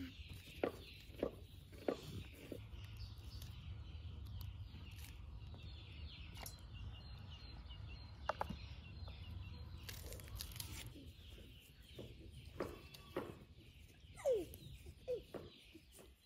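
Outdoor rural yard ambience: a steady low rumble with faint bird chirps, scattered small clicks and a few brief animal calls near the end.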